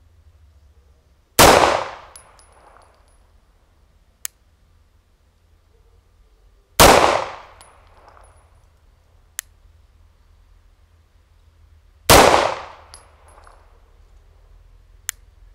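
CZ P-09 9 mm pistol firing PPU full-metal-jacket rounds in slow, deliberate fire: three shots about five seconds apart, each with a short echoing tail. A sharp tick follows a few seconds after each shot.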